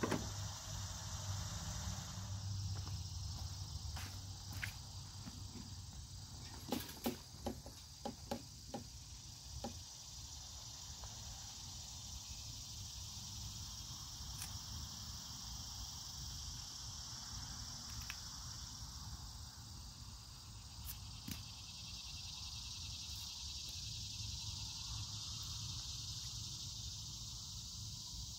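Steady high chirring of crickets and other insects, with sharp clicks and clacks on top, most of them in a quick run from about seven to ten seconds in.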